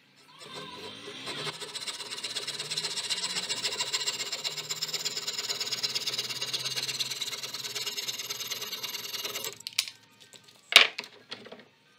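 Hand coping saw cutting through a small piece of wood held in a bench vise, in quick, even strokes. The sawing stops abruptly, and near the end there is a single sharp knock.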